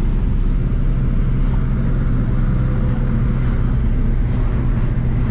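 Hindustan Ambassador car driving at a steady speed, heard from inside the cabin: a steady engine hum with road noise.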